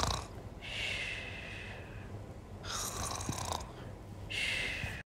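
Snoring: three long snores in a row, each lasting about a second.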